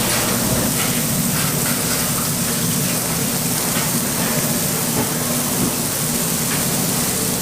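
Steady hissing noise with a low hum underneath and faint scattered ticks.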